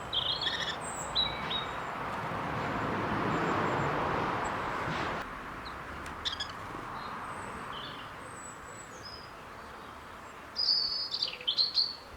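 Garden songbirds chirping and calling in short high notes, scattered through, with a loud flurry of chirps near the end. Behind them a rushing noise swells over the first few seconds and stops abruptly.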